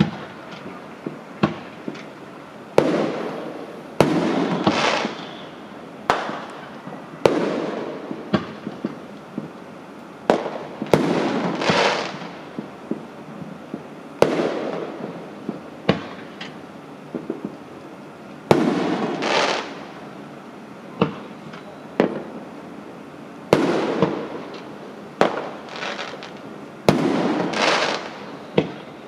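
Fireworks going off: sharp bangs every second or two at irregular intervals, several of them followed by about a second of hissing crackle.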